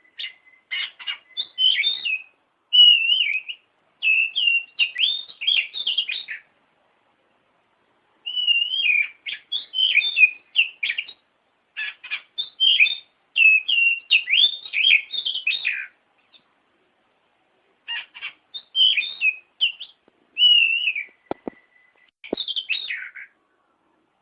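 Oriental magpie-robin (kacer) song in bursts of rapid, varied whistles and chattering notes, with short pauses between phrases. It is a lure recording played to provoke a reluctant caged kacer into singing. Two sharp clicks come near the end.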